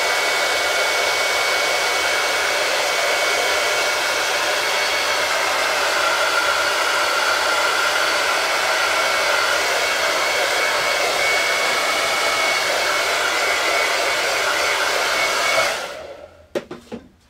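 Handheld hot-air dryer blowing steadily on fresh touch-up paint to dry it, with a faint high whine over the whoosh. It switches off about sixteen seconds in.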